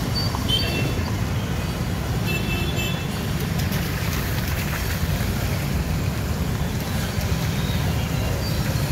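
Road traffic ambience: a steady rumble of vehicles on a wet road, with a couple of short high-pitched tones about half a second in and again around two to three seconds in.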